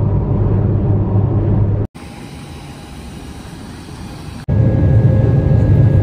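Steady low road rumble inside a car driving on a motorway. It cuts abruptly at about two seconds to a quieter steady noise, then at about four and a half seconds to the loud steady drone of a jet airliner's cabin and engines, with a faint steady whine above it.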